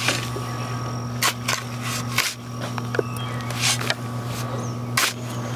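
Metal shovel digging into a soil pile and tipping soil onto rocks: several short, sharp scrapes spaced irregularly, over a steady low hum.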